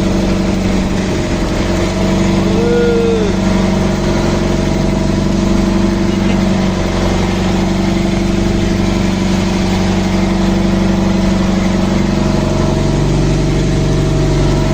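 An engine running steadily at an even speed, with a constant low hum throughout.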